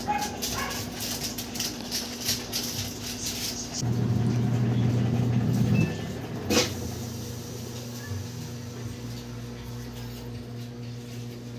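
Electric hum from a Samsung Diamond Drum washing machine's motor or pump, much louder for about two seconds starting around four seconds in, then a single sharp click. A fainter steady hum stays under it.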